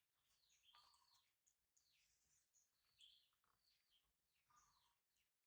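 Near silence with faint, repeated high chirps of birds calling.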